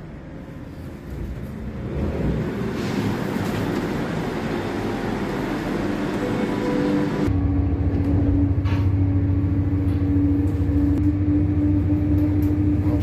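SD85 diesel railcar's engine throttling up with a sudden deep rumble and a steady hum about seven seconds in, as the train pulls away from the platform. Before that, a rising hiss of noise.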